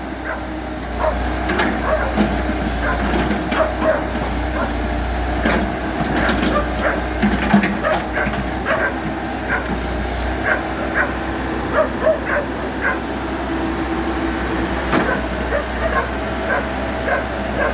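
Komatsu excavator's diesel engine running with a steady low hum, with many short, sharp high-pitched sounds coming irregularly over it.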